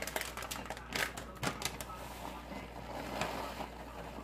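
A plastic bag of shredded mozzarella being handled and shaken out, with a quick run of clicks and crinkles in the first couple of seconds, then a softer rustle as the cheese falls.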